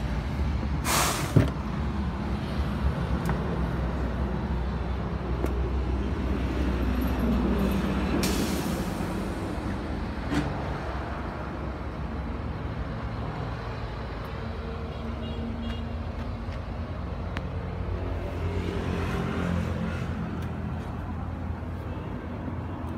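Hyundai three-axle dump truck's diesel engine idling steadily, with two short hisses of air from the air system, about a second in and again about eight seconds in. A sharp thump comes just after the first hiss.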